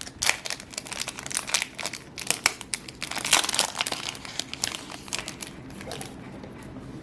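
Foil booster pack wrapper of Yu-Gi-Oh cards crinkling as it is handled and opened, a dense run of irregular crackles that dies down about six seconds in.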